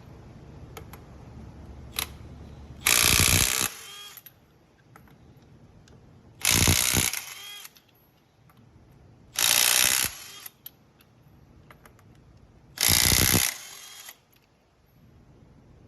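Milwaukee M12 Fuel 2564-20 3/8-inch right-angle impact wrench hammering in four short bursts about three seconds apart, breaking loose the lug nuts on a wheel that had not been touched.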